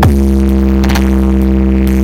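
DJ remix music played loud through a sound-box speaker setup, a steady droning bass hum under it, with a sharp hit at the start.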